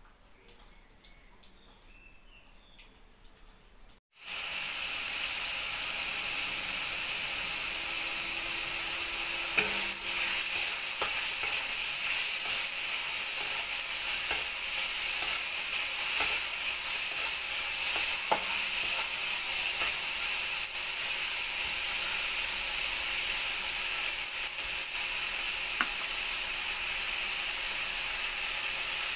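Diced bacon sizzling steadily in a hot nonstick wok, starting suddenly about four seconds in after near quiet. A few short clicks and scrapes of a wooden spatula against the pan come through the sizzle.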